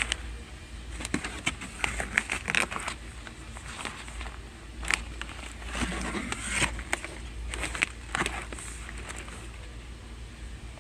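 Irregular clicks and knocks of goods being handled while shopping, over a low steady hum.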